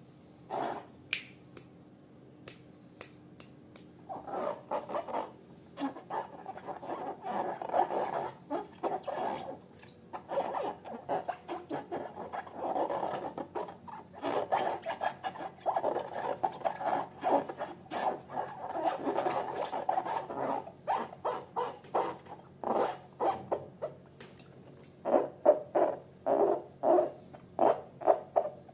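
Slime being handled and squeezed: runs of sticky, wet clicks and squelches, sparse at first, dense from about four seconds in, then quicker separate clicks near the end.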